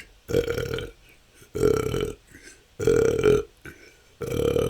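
A person burping naturally, four short belches in a row, one about every second and a quarter, each lasting about half a second.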